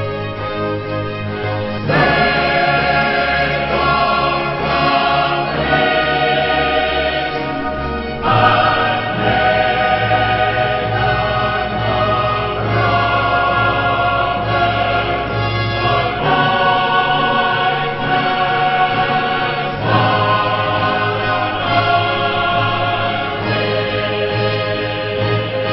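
Opening theme music: a choir singing long held chords over a low bass, getting louder about two seconds in, with the chord changing every few seconds.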